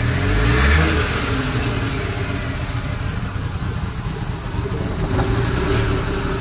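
Suzuki Scrum's rear-mounted engine running, revved briefly in the first second, then settling to a steady idle. The engine has a reported misfire and an RPM that wanders high and low.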